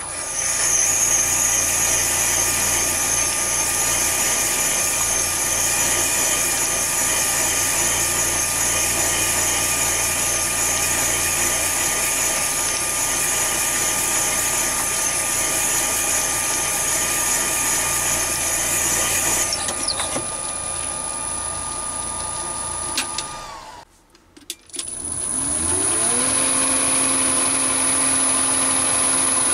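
Chinese mini lathe running steadily while a carbide-tipped multi-purpose drill in the tailstock bores into a spinning stone sphere, with a high whine over the machine noise. The drilling sound stops about 20 seconds in and the lathe winds down. After a brief gap the motor spins up again with a rising whine and runs steadily at a higher speed.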